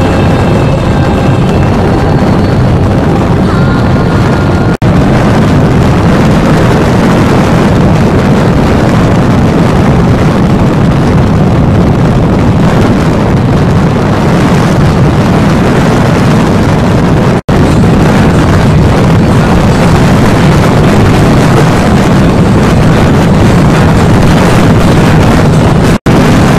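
Motorcycle riding along at road speed: steady engine note mixed with wind rushing over the microphone. The sound drops out for an instant three times.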